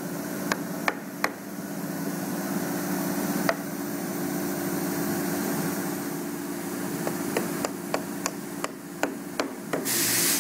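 Soft-faced hammer tapping baltic birch plywood dovetail drawer parts to seat their tight-fitting joints: a few separate knocks in the first seconds, then a quicker run of taps in the last few seconds. A steady shop hum runs underneath.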